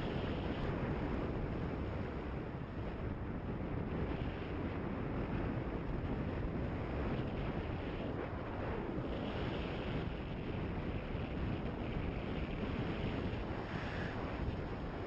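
Steady rush of wind buffeting the microphone of a motorcycle riding a dirt road, with the bike's running noise and tyres on gravel mixed in underneath.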